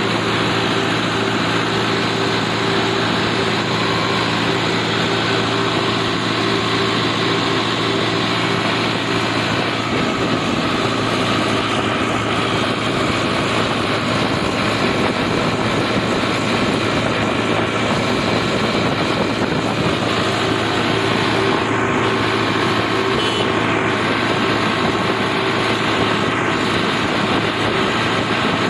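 Farmtrac 6055 PowerMaxx tractor's diesel engine running steadily under way on the road, heard from the driver's seat; its note changes a little about ten seconds in.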